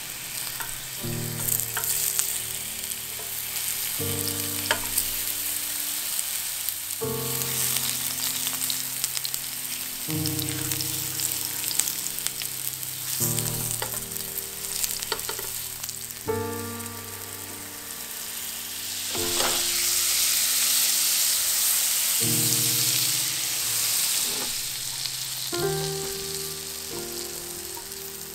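A steady sizzling hiss, loudest about two-thirds of the way through, over background music with sustained chords that change every second or two.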